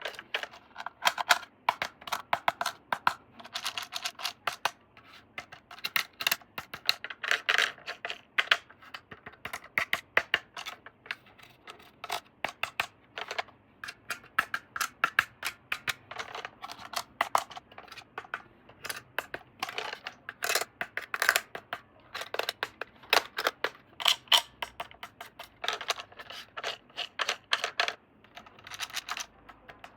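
Irregular clicks, taps and short scrapes of hands handling plastic toy parts and packaging during an unboxing.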